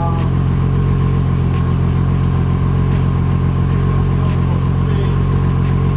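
Nissan RB25DET turbocharged inline-six idling steadily, at an even pitch and level with no revving.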